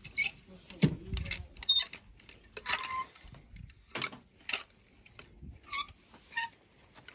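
Plastic clothes hangers sliding and clacking along a metal clothes rail as garments are pushed aside one after another: a string of sharp, irregular clicks and short scrapes.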